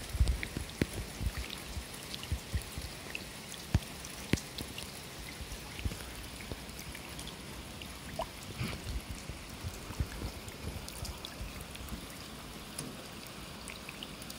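Rain falling on a wet paved path and into shallow puddles: a steady hiss with many separate drop impacts and splashes, and low thumps that are heaviest in the first second or so.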